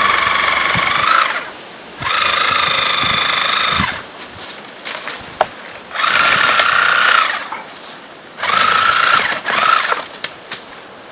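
Cordless 18-volt Milwaukee reciprocating saw (Sawzall) cutting through tree trunks. It runs in four bursts of one to two seconds each, with a steady high whine. Between the bursts there are short cracks and snaps.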